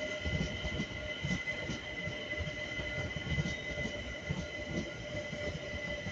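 London Overground Class 378 electric multiple unit running past over the station's pointwork, with a steady high-pitched whine over a low rumble broken by irregular knocks as its wheels run over the rail joints.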